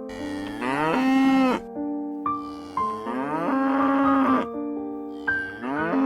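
A cow mooing three times, each moo rising in pitch and then holding, over background keyboard music.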